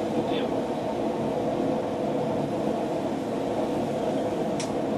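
Steady rushing noise with a low hum, and a single light tap near the end.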